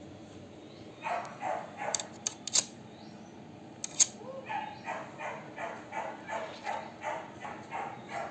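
A dog barking over and over in short, evenly spaced barks, about three a second through the second half, with a few sharp clicks of small hard parts along the way.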